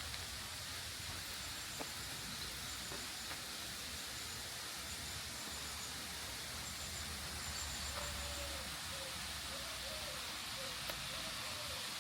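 Steady rush of a waterfall, heard as an even hiss, with faint short high-pitched notes repeating about once a second and a faint wavering tone near the end.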